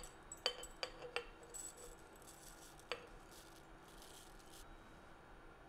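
A glass mason jar clinks four times as ingredients and a utensil are knocked against it, three quick clinks and then one more about two seconds later, with a soft dry rustle of the dry ingredients going into the jar between them.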